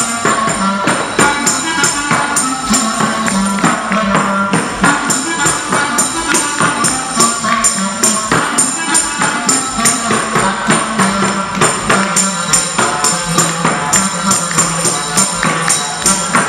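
Live band playing up-tempo folk-style music, a tambourine jingling on every beat in a steady rhythm.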